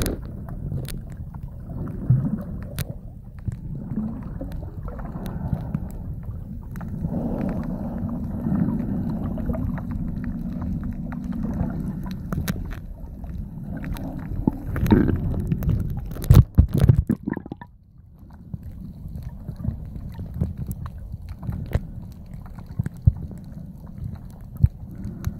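Muffled underwater water noise picked up by a submerged camera: a steady low rumble with gurgling, scattered clicks, and a short run of louder knocks a little past halfway.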